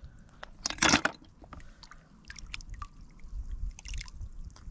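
Hands working in shallow muddy paddy water, with a louder splash about a second in, then scattered small clicks and wet squelches as snail shells knock together in the hand.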